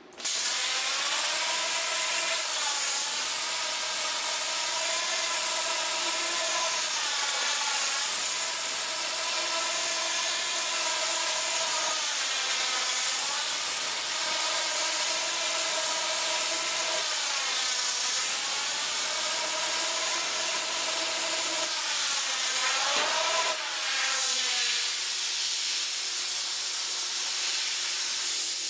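CNC plasma torch cutting square steel tube, a loud steady hiss that starts abruptly with the arc. Over it, the whine of the machine's drive motors rises and falls in pitch as the tube turns and the torch moves, with a brief dip and a quick pitch sweep near the end.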